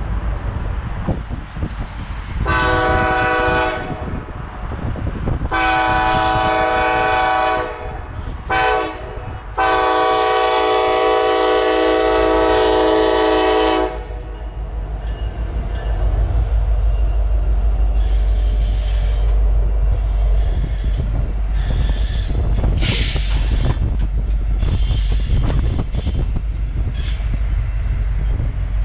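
Norfolk Southern freight locomotive's air horn sounding the grade-crossing signal, long, long, short, long, as the train approaches. The lead diesel locomotives and freight cars then pass in a steady loud rumble, with intermittent high-pitched wheel noise.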